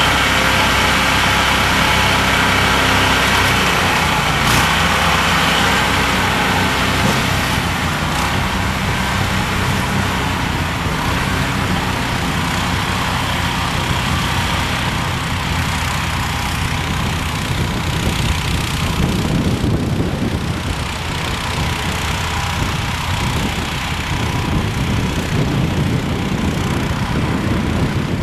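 John Deere 1032 snowblower, refitted with a 16 hp engine, running steadily.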